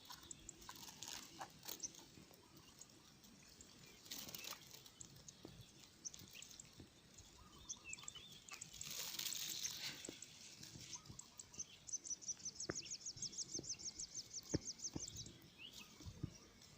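Faint outdoor rice-paddy ambience: scattered small clicks and rustles, a brief hiss about nine seconds in, and a fast high ticking trill of about ten ticks a second from about twelve to fifteen seconds in.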